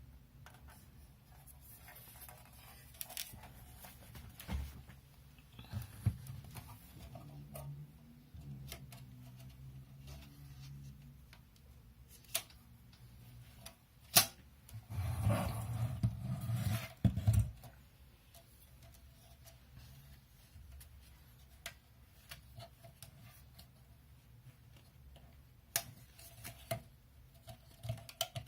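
Hand-handling noises from working on a QNAP TS-253A NAS: scattered sharp clicks and taps, with a louder, rougher stretch of about two seconds just past the middle.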